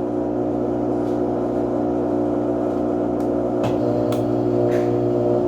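Brastemp Total 7 kg top-loading washing machine running, its motor giving a steady hum of several held tones, with a couple of faint clicks a little past the middle.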